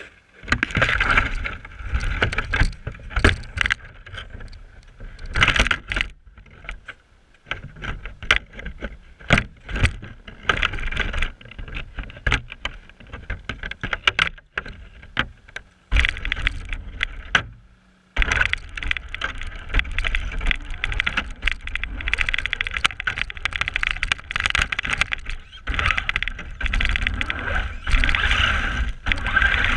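A Traxxas RC car driving through snow, heard from a camera mounted on it: motor and drivetrain whine in stop-start bursts of throttle, with the tires churning snow and the chassis knocking and rattling over bumps.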